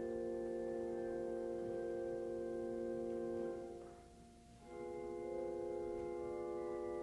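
Church organ music playing slow sustained chords. One chord fades out about four seconds in, and a new chord comes in half a second later.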